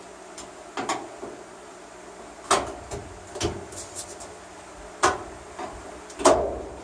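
Irregular sharp clunks and clicks, about half a dozen, from the parts of a washing machine being handled and taken apart.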